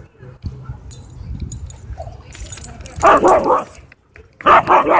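Dogs barking and snarling in two loud, harsh bursts, the first about three seconds in and the second near the end.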